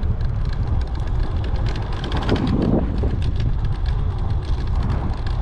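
Off-road electric scooter riding over rough ground, with wind buffeting the microphone: a steady low rumble scattered with small clicks and rattles.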